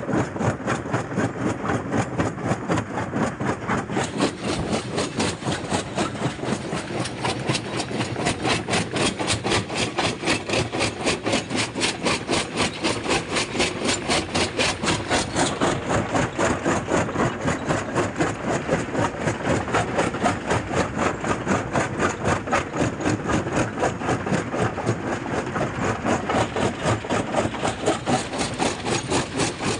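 Jaw crusher crushing rock between its toothed jaw plates, a steady rhythmic pounding of about three to four strokes a second as the moving jaw cycles.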